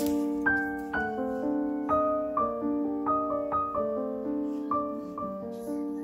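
Background piano music: gentle notes struck about twice a second, each one fading away.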